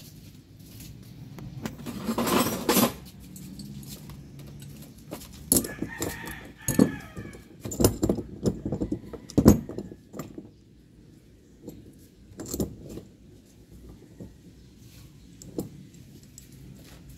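A chicken clucking about six seconds in, among scattered metallic clinks and knocks.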